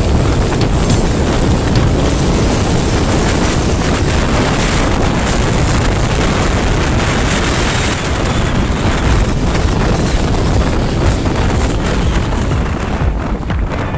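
Wind buffeting the microphone of a moving vehicle, a loud rough rumble mixed with road and engine noise.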